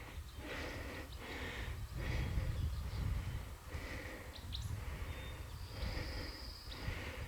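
A hiker breathing hard on a steep uphill climb, each breath rising and falling about once a second, over a low rumble on the microphone. A faint high chirp about halfway in.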